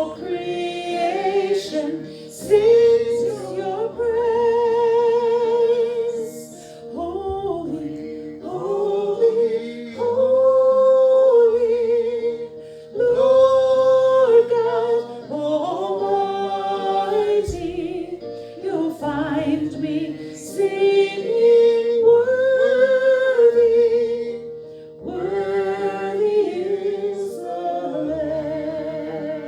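Worship song sung in church, with held notes sung with vibrato and a steady accompaniment beneath.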